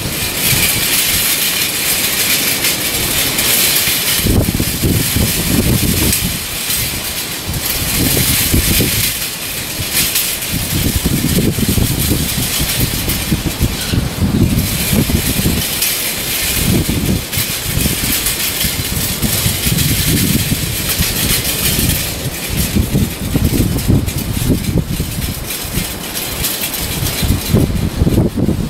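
Gusty wind buffeting the microphone in irregular rumbling surges every second or two, over a steady hiss of wind.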